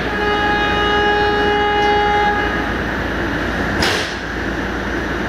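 Train horn blowing one steady note for about two and a half seconds over the running rumble of a moving passenger train, followed by a single sharp knock near the end.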